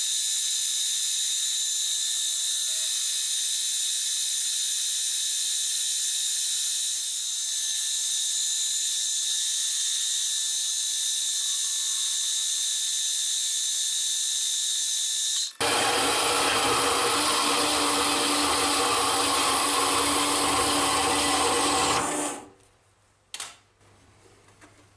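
Milling machine cutting metal with a small end mill: a steady, high-pitched cutting whine. About two-thirds through it cuts to a lower, broader machine noise that stops abruptly near the end.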